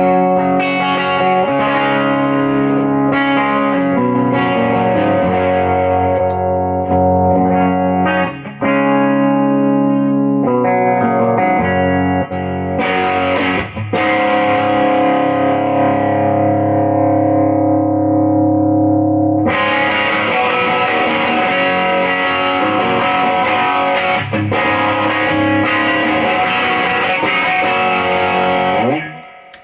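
Electric guitar (a Les Paul) through an Audile TOAD overdrive pedal with its gain all the way down, into a Fender Deluxe amp, giving a lightly driven tone. Chords are strummed, and one is left to ring and fade midway. About two-thirds in, a fuller, brighter strummed passage starts, then stops just before the end.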